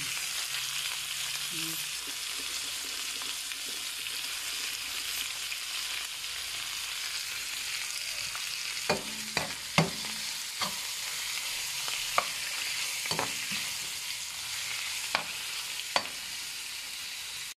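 Cubed raw pork sizzling in hot oil in a pan with garlic and onion, a steady frying hiss. From about nine seconds in, a utensil knocks against the pan several times as the pork is stirred.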